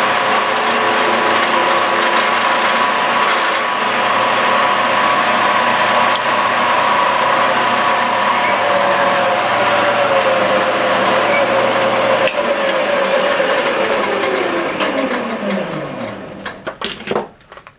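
Shopsmith Mark V lathe running with the lathe duplicator's carbide cutter head cutting the spinning wood. It is switched off about twelve seconds in and its whine falls steadily in pitch as it winds down, with a few knocks near the end.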